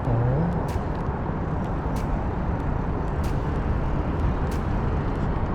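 Steady rumble of heavy interstate traffic crossing the bridge overhead, with faint regular ticks about every two-thirds of a second.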